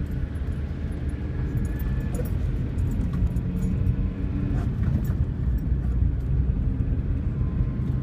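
Car engine and tyre noise heard from inside the cabin while driving on a wet road: a steady low rumble, with scattered faint ticks.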